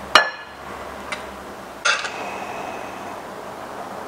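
A spoon clinking against dishware as pasta with peas is served from the pan into a ceramic bowl. There is a sharp clink with a brief ring just after the start, a light tick about a second in, and another clink about two seconds in whose ring hangs on for about a second.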